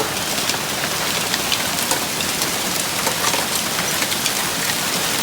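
Heavy rain and hail from a severe thunderstorm pelting down: a dense, steady hiss with many sharp ticks of individual hits scattered through it.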